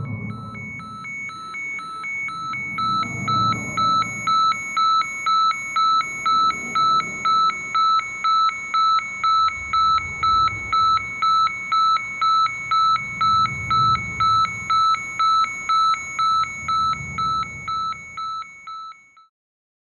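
Rapid electronic beeping, about two high-pitched beeps a second, growing louder over the first few seconds and then cutting off abruptly near the end. A low rumble swells and fades underneath.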